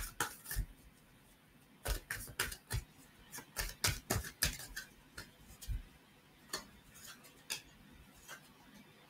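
A tarot deck being shuffled by hand: a quick run of sharp card clicks and slaps, densest in the first six seconds, then a few scattered clicks near the end.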